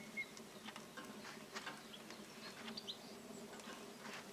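Faint, scattered songbird chirps over a low, steady hum.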